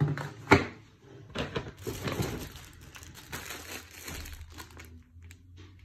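Plastic packaging crinkling and rustling as wrapped items are handled and shuffled about, with a sharp knock about half a second in that is the loudest sound, and a few small clicks near the end.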